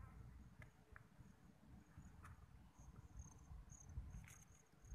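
Near silence with faint, high-pitched insect chirping in short, uneven pulses, and a few faint clicks.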